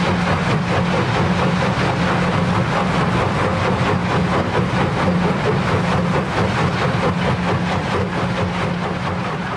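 Mobile concrete-crushing plant (jaw and cone crusher with stacking conveyor) running: a steady heavy engine drone under a constant gritty rattle of crushed concrete pouring off the conveyor onto the stockpile.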